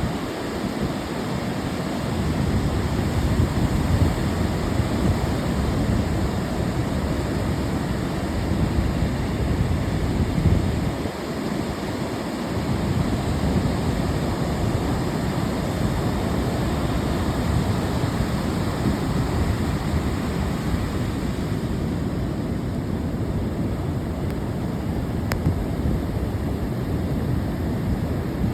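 Ocean surf washing steadily, with a deep rumble of wind on the microphone that eases briefly twice.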